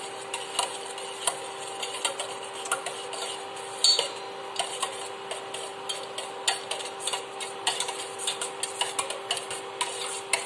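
Steel ladle stirring grated soap into water in a stainless steel pot, clinking and scraping against the pot's sides in irregular light taps, with one sharper knock about four seconds in, to dissolve the soap. A steady hum runs underneath.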